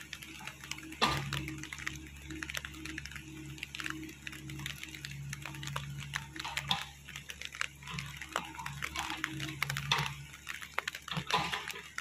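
SDLG mini excavator's diesel engine running in a low steady hum, with scattered cracks and clatters as the bucket digs into soil and tears out roots.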